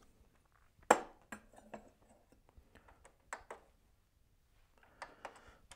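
A few light clicks and knocks, the loudest about a second in, from handling the capsule coffee machine and a glass while setting up a rinse.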